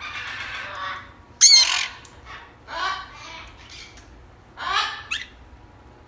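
Parrots squawking and chattering. The loudest is a harsh squawk a little after a second in, followed by shorter calls twice more.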